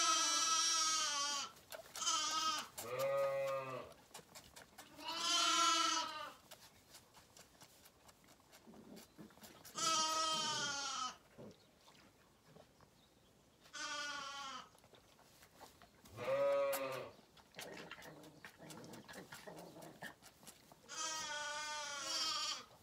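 Zwartbles lambs bleating, about eight separate bleats spread out with pauses between, some noticeably lower-pitched than others.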